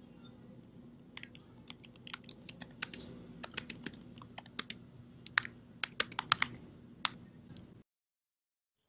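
Keyboard typing: an irregular run of quick keystroke clicks over a faint steady hum. All sound cuts off suddenly near the end.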